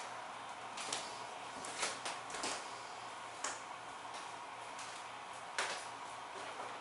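About half a dozen irregular, sharp clicks and light knocks over a steady hiss.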